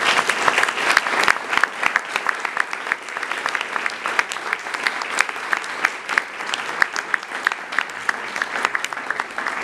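Audience applauding, many hands clapping in a dense patter that is loudest in the first couple of seconds.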